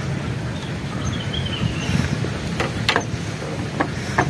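Steady low outdoor rumble with a few short sharp clicks in the second half.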